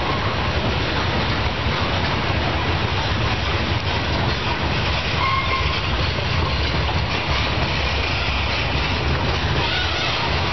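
Norfolk Southern freight train's tank cars and covered hopper cars rolling steadily past, steel wheels clacking on the rails, with a couple of brief faint squeals.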